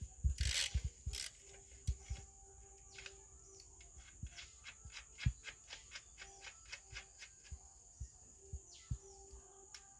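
A few heavier knocks in the first second or so, then a long run of short, light clicks and taps, about two or three a second, from hand work on a single-phase high-pressure pump.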